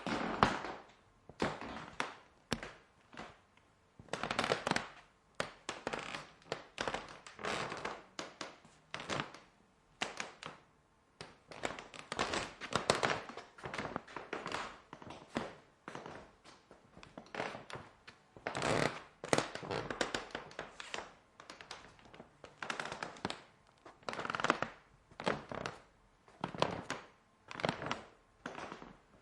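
Footsteps on a creaking wooden floor: a long run of knocks and taps about a second apart, some stretches drawn out into creaks of the boards.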